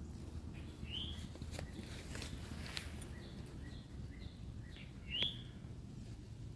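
Birds chirping: a few short, high chirps, the loudest about five seconds in, over a low steady outdoor rumble.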